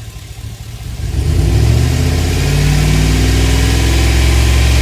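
Chevrolet Express V8 engine brought up from idle by pressing the throttle about a second in, then held steady at raised revs during a check for a cylinder 1 misfire.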